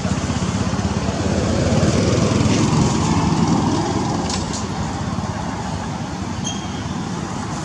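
A motor engine running steadily, swelling for a couple of seconds and then easing off, as a passing vehicle does; a couple of faint clicks near the middle.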